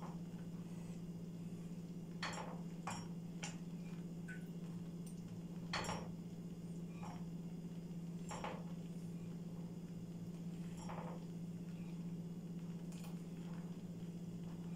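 A spoon stirring thick strawberry jam in a stainless steel pot, knocking and scraping against the pot now and then, over a steady low hum.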